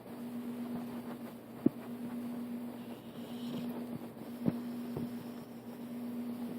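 Pit bull snoring softly in its sleep, the breathing noise rising and falling over a steady hum, with two sharp clicks about two seconds and four and a half seconds in.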